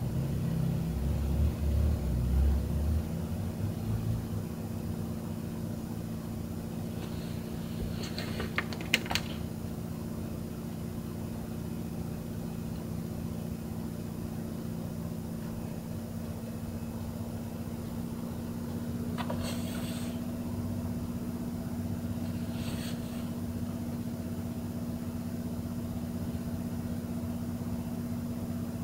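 Steady low mechanical hum, with a low rumble in the first few seconds and a few sharp clicks about nine seconds in. A second, higher hum joins after about nineteen seconds, and two brief hisses come near the end.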